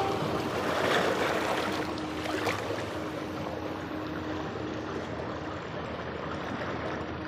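Small sea waves washing in over barnacle-covered rocks at the shoreline, loudest about a second in, then easing into a quieter trickle and swash as the water drains back between the rocks.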